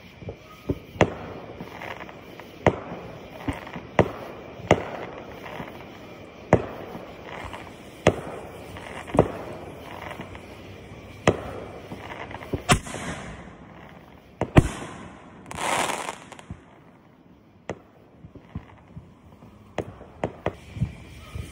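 Fireworks going off: irregular sharp bangs and pops over a crackling background, packed closest in the first half. Three hissing whooshes come about two-thirds of the way through, the last the longest.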